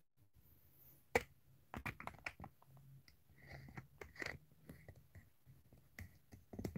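Handling noise of a phone being picked up, turned and set in place: scattered light clicks and knocks, the sharpest about a second in, over a faint steady low hum.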